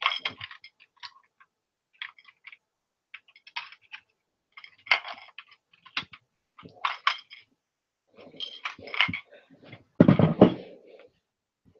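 Plastic LEGO pieces of a built Phantom shuttle clicking and rattling in the hands as the model is handled and its parts clicked into place, in short irregular bursts. A louder knock and rattle about ten seconds in as the model is set down on a table.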